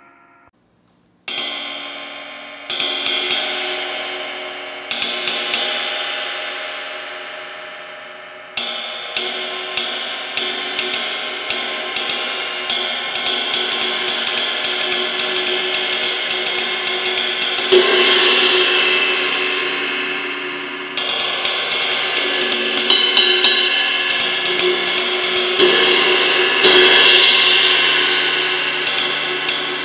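A 20-inch hand-hammered ride cymbal struck with a wooden drumstick: first a few single strokes, each left to ring out and fade, then a steady riding pattern over a long, building wash. Twice the pattern gives way to a louder hit that swells the ring before the riding resumes.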